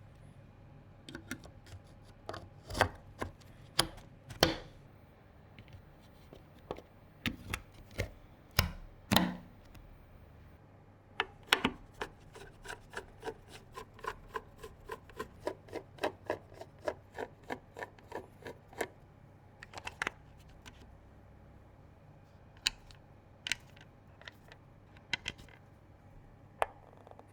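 Hard plastic and metal computer parts being handled during a PC build: a string of sharp clicks, taps and knocks of uneven strength, with a run of even lighter clicks, about two to three a second, in the middle.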